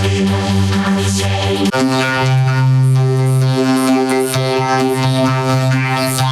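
Electronic music with held synthesizer chords; the chord changes abruptly about two seconds in and then holds.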